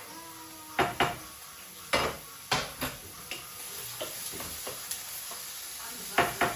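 A spoon stirring food in a cooking pot, knocking sharply against the pot several times over a faint steady sizzle.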